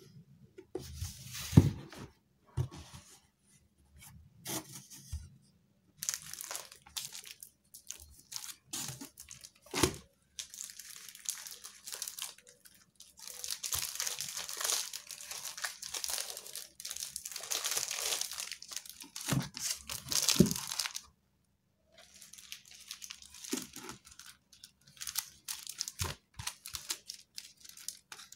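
Paper and plastic-sleeved prints rustling and crinkling as they are handled and packed into a cardboard box, with a few knocks of the box being moved, the loudest about a second and a half in.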